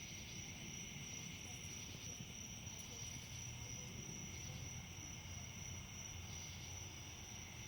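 Steady chorus of insects, a continuous high-pitched trill, over a faint low rumble.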